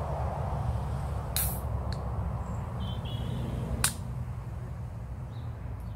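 Two sharp clicks about two and a half seconds apart, the second the louder, with a fainter click between them, over a low steady rumble.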